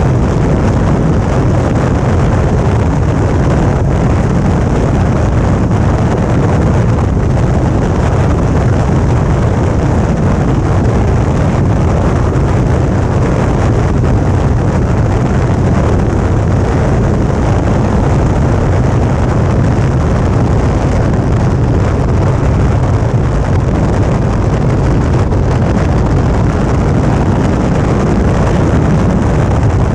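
Suzuki V-Strom 650's 645 cc V-twin engine running at a steady cruising speed, mixed with the rush of wind on the action camera's microphone. The noise is loud and unchanging throughout.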